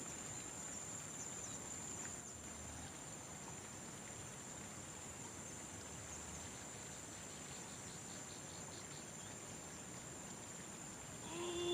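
Steady high-pitched chirring of insects over faint outdoor hiss. Near the end, a brief falling voice-like sound.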